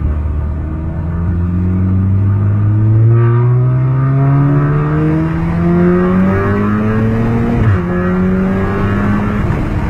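Volkswagen Golf Mk7 engine under hard acceleration, heard from inside the cabin. The revs climb steadily through a gear for most of the time, drop sharply near the end as it shifts up, then start to climb again.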